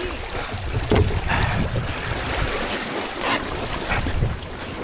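Wind buffeting the microphone, with water washing along the hulls of a small beach catamaran under sail. Several gusts swell and fade.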